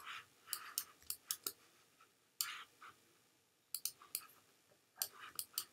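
Computer mouse clicking, faint, several times in short clusters with pauses between, as CVs of a curve are picked and dragged.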